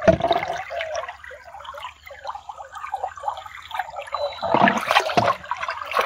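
Spring water from a natural spring flowing over stones in a shallow stream, a continuous uneven splashing, briefly louder about four and a half seconds in.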